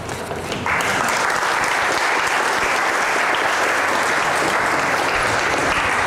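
Audience applauding. Clapping breaks out just under a second in and holds steady.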